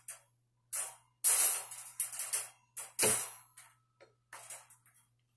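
Metal wire panels of a 22-inch wire dog crate clanking and rattling as it is handled and unfolded, in several separate clatters, the loudest a little over a second in and about three seconds in.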